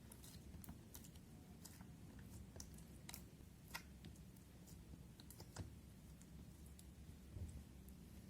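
Faint, irregular little clicks and crackles of slime being handled, a few slightly sharper ones about three and a half and five and a half seconds in, over a low background hum.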